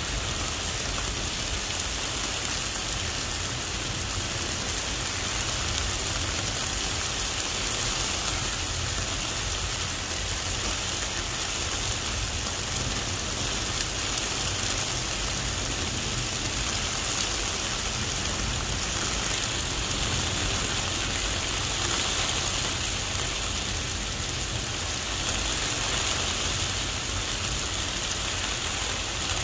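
Heavy rain pouring steadily onto a wet street and pavement, an even hiss with a low rumble beneath it.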